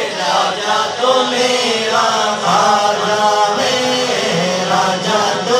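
Men's voices singing a manqabat, the Urdu devotional song in praise of a Sufi saint, in a chanting style: a lead voice on a microphone with others joining in on the refrain.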